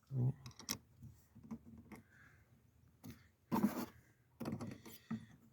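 Scattered clicks and knocks of hands and tools working a car battery's terminal clamp, which will not tighten on the post.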